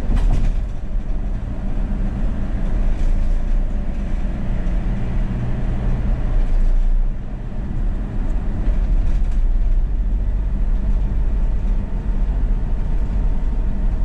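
Inside a car cruising at expressway speed: a steady low rumble of tyres on the road with engine hum, and one short sharp click right at the start.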